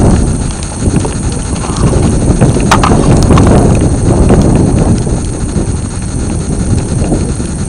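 Wind buffeting the microphone: a loud, uneven low rumble that swells and dips throughout, with a single sharp click nearly three seconds in.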